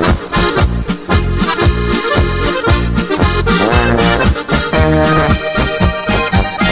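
Background music: an instrumental passage of a Tyrolean folk song, accordion over a steady beat.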